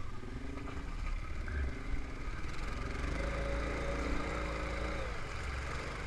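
ATV engine running as the quad wades through deep water, with water splashing around it; about halfway through the engine note rises and pulls harder for a couple of seconds, then settles.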